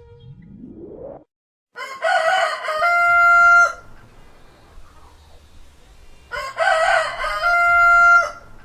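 A rooster crowing twice, about four seconds apart, each crow ending in a long held note. A short rising sweep comes just before the first crow.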